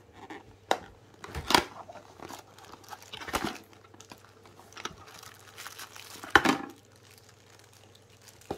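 Plastic packaging crinkling and a small cardboard box being handled as power plug adapters in plastic bags are unpacked. The rustling is irregular, with a few sharp crinkles, the loudest about one and a half, three and a half and six and a half seconds in.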